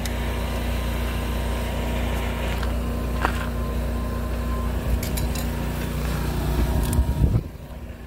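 Gas RV generator's engine cranking on its starter for about seven seconds without catching, then cutting off suddenly; the fault is cranking but not starting.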